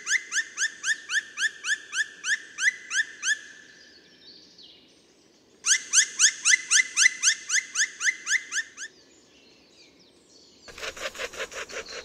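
Black woodpecker calling: two long series of loud, rising 'kwee' notes, about five or six a second, with a pause between them. This is the species' spring territorial song. A fast run of short rattling knocks begins near the end.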